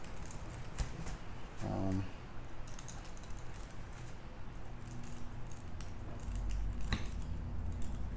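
Small clicks and rattles of screws, tools and plastic RC-car parts being handled while the front bulkhead is unscrewed. A steady low hum comes in about six seconds in.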